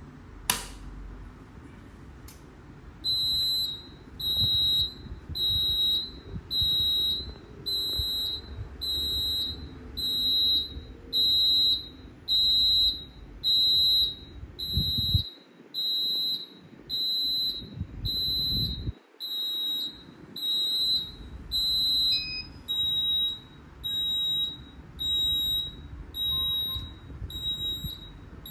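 Addressable fire alarm panel sounding its alarm: a high-pitched beep repeating about once a second, starting about three seconds in after a single sharp click.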